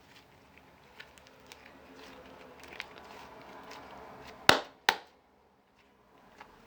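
Faint scattered clicks and rustling, then two sharp knocks about half a second apart, a little past the middle.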